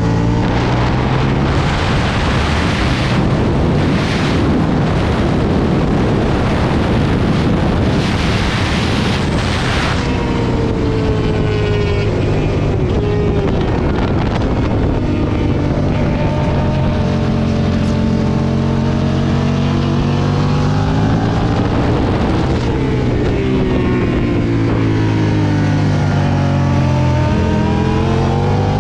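Aprilia Tuono 1000 V-twin motorcycle engine at speed on track, heard on board. For the first ten seconds heavy wind rush buffets over it. After that the engine note rises and falls several times as the rider shifts gears and brakes into corners.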